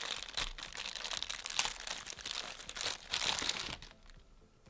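Plastic packaging crinkling and rustling as a USB Type-C cable is unwrapped, a busy run of small crackles that stops near the end.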